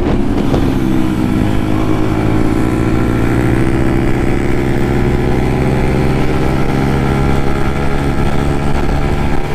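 Yamaha MT-15's single-cylinder engine through an aftermarket Akrapovic exhaust, running at steady riding speed. The pitch climbs slowly over the first few seconds, then holds.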